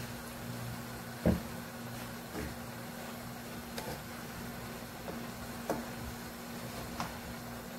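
Wooden spatulas tossing rice noodles in a metal cooking pot. They knock against the pot about five times, loudest about a second in, over a steady low hum.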